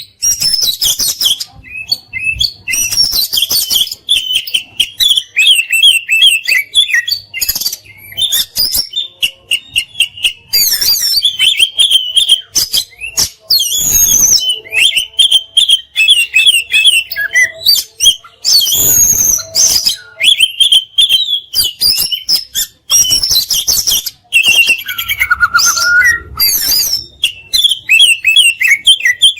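Oriental magpie-robin (kacer) singing continuously in rapid, varied phrases, with fast runs of chattering notes and sharp clicks between short pauses. It is a songbird tutor song full of fill-in phrases and rapid-fire 'shots'.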